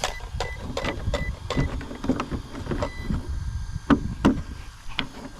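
Small electric cooling fans on an RC car's brushless motor and ESC whirring in short pulses, among irregular clicks and knocks. The pulsing is a sign that the fans are not getting full power.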